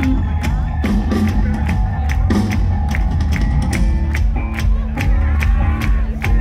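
Live rock band playing loud: drums keeping a steady beat of hits, about four a second, under held bass and electric guitar notes.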